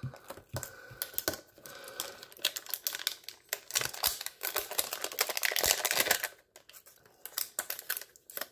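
A cardboard trading-card hanger box being opened by hand: scattered sharp taps and clicks of fingers on the cardboard, with a few seconds of rustling and scraping as the flap is worked open and the wrapped pack is slid out.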